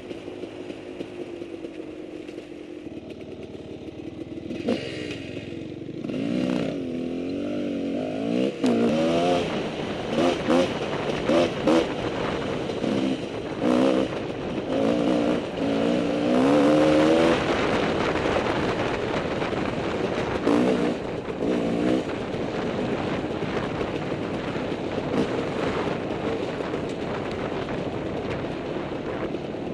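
Husqvarna WR300 two-stroke dirt bike engine revving up and down on a rocky trail, its pitch rising and falling again and again. The revving is busiest in the middle and settles into a steadier run near the end.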